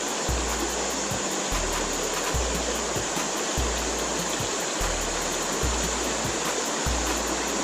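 Creek water running steadily over rocks, a constant rushing hiss. Underneath it a low bass pulse repeats about every 1.2 seconds.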